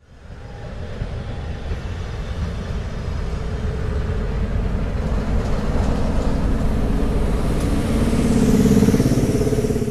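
Class 37 diesel locomotive's English Electric V12 engine running with a deep, throbbing rumble, growing louder as the train approaches.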